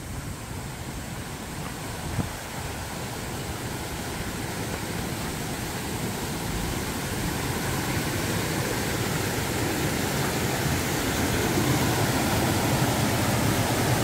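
Mountain stream rushing and splashing over boulders in small cascades, a steady rush that grows gradually louder.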